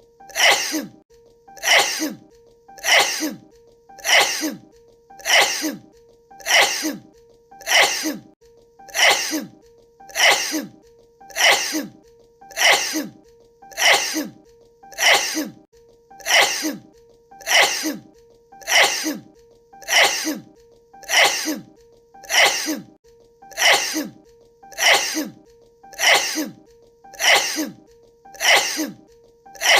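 A woman sneezing over and over at an even pace, about one sneeze every 1.2 seconds, the same sneeze repeated as a loop. A faint steady tone runs underneath.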